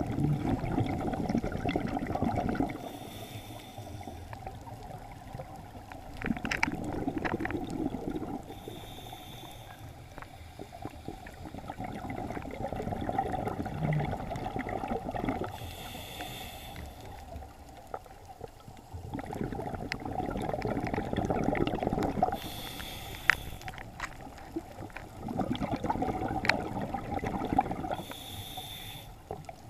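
Scuba diver breathing through a regulator at a slow, even rate: a short hiss on each inhale and a longer bubbling rumble on each exhale, about five breaths in all.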